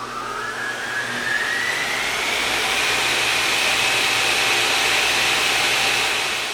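A machine's motor spinning up: a whine rises in pitch over about three seconds over a rushing noise, then holds steady at full speed and fades out near the end.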